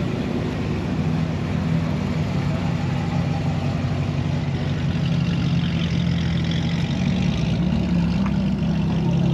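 A car engine idling steadily, its low, even note slowly getting a little louder.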